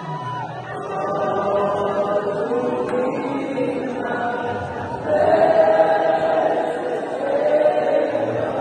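A group of voices singing together in long held notes, like a choir or congregation in worship, growing louder about five seconds in.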